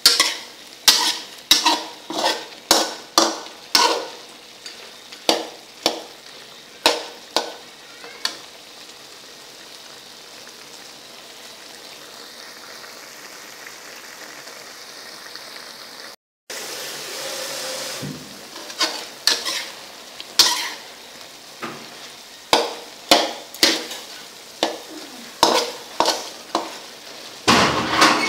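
Frog meat stir-frying in a wok: a metal spatula scrapes and clanks against the wok about twice a second over a steady sizzle. The stirring stops for several seconds in the middle, leaving only the sizzle, then starts again.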